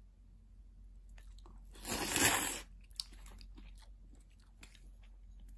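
One short slurp of mozuku seaweed and somen noodles in broth, about two seconds in, with faint clicks of chopsticks and bowl before and after it.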